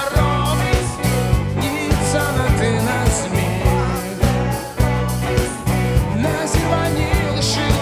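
Rock band playing with a steady drumbeat and bass.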